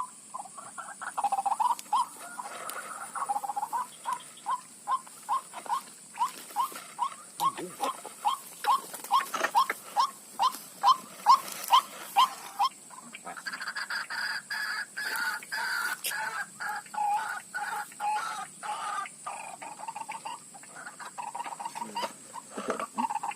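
White-breasted waterhen calls: a long run of short, evenly repeated notes, about two or three a second. About halfway through they give way to a denser, overlapping stretch of calling.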